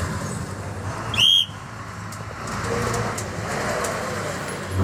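A whistle blown once, short and sharp, about a second in, over steady vehicle and road noise.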